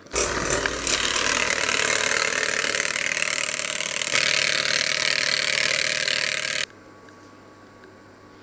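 Electric hand mixer running loud, its beaters whisking eggs and milk in a stainless steel bowl. It starts right away and cuts off suddenly after about six and a half seconds.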